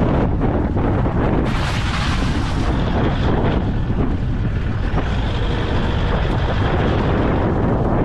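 Campfire burning, with a steady low rumble of wind buffeting the microphone and scattered crackles; a brighter hissing rush swells about a second and a half in and fades by three seconds.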